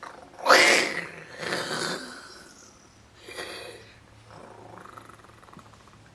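A boy imitating a tiger's roar with his voice: one loud rough roar, then a second slightly weaker one and a short third.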